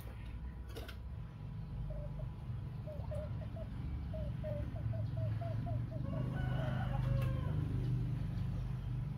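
Chickens: a run of short, quick clucks, about five a second, followed about two-thirds of the way through by a rooster crowing once. A steady low hum runs underneath.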